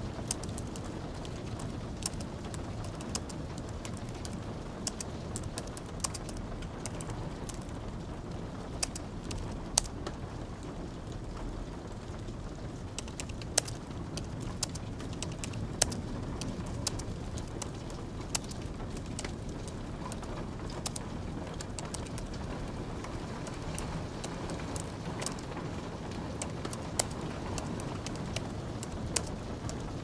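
Typing on a low-profile computer keyboard: irregular key clicks, a few sharper than the rest, over a steady bed of light rain and crackling fire.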